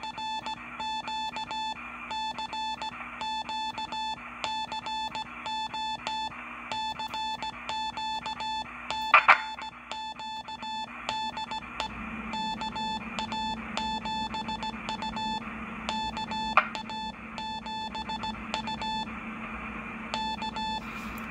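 Morse code being keyed on a Heathkit amateur radio station, heard as a beeping tone in dits and dahs sent in groups: an operator calling for a contact. A low hum runs underneath, and a couple of sharp clicks come about nine seconds in.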